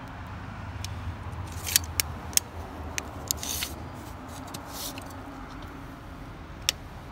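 Tape measure being handled, with a few sharp clicks and short scraping hisses as the blade moves and is reeled in. A steady low rumble runs underneath.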